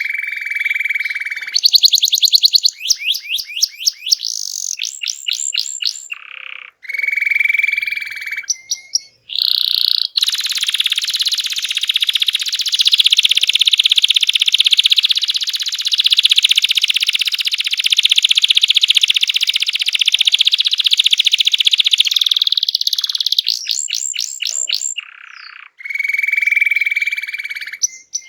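Domestic canary singing a loud, continuous song: held whistled notes and rapid trills, with one long rolling trill lasting about thirteen seconds in the middle.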